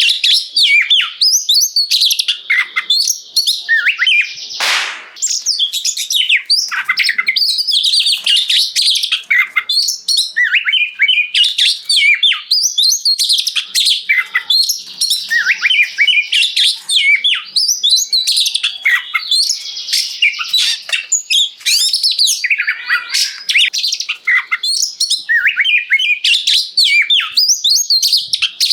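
Oriental magpie-robin (kacer) in full, loud song: a fast, unbroken stream of varied whistles, trills and chirps. About five seconds in there is one brief harsh rasp.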